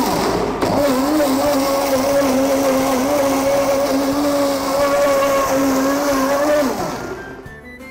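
Sansrol heavy-duty professional blender running at high speed, its motor humming steadily while it purées onion, shallot, garlic, galangal, turmeric and boiled dried chili with water into a fine spice paste. The hum dips briefly about half a second in, then near the end the motor is switched off and winds down, falling in pitch to a stop.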